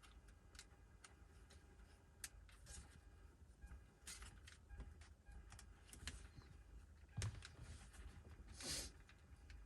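Faint scattered clicks and light knocks of hands handling a car's dashboard parts, over a low rumble, with louder rustling handling noises about seven and nine seconds in.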